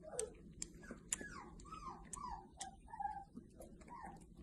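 Faint, rapid squeaky animal calls, about three short bending squeaks a second, with sharp ticks scattered between them.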